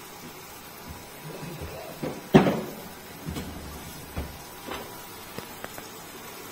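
Kitchen clatter while noodles are being cooked: a few separate knocks and clunks, the loudest and sharpest about two seconds in, with softer ones after it.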